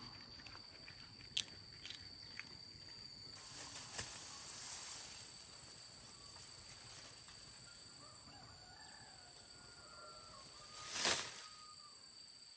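Rural outdoor ambience: a steady high-pitched drone with faint farmyard fowl calls and a few light clicks, and a brief loud whoosh about eleven seconds in.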